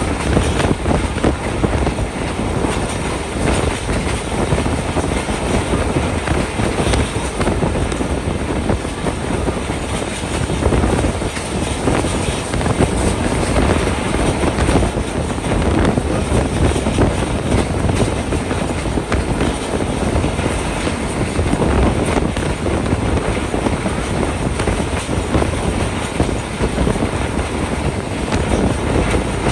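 Passenger train running along the track, heard from aboard a coach: a steady, loud rumble of wheels on rails.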